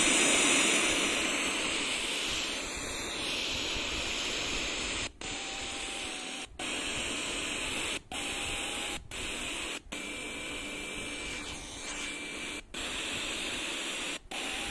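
FM radio static from a cheap portable Bluetooth speaker in its FM tuner mode, a steady hiss with no station tuned in. It cuts out briefly about seven times.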